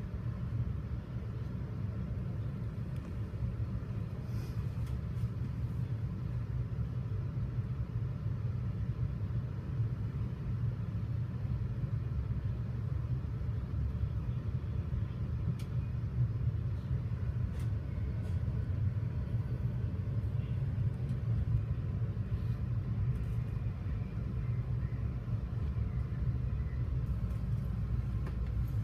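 Steady low rumble of an MBTA commuter rail coach running along the track, heard from inside the passenger car, with a few faint ticks.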